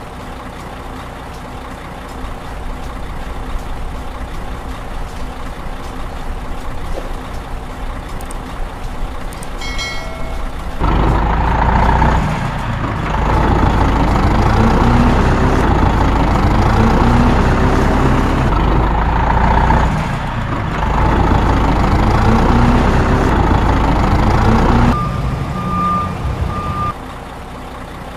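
Heavy truck engine running, then much louder for about fourteen seconds with its pitch rising again and again as it pulls away through the gears. A short beep comes just before the loud stretch, and a steady beep after it.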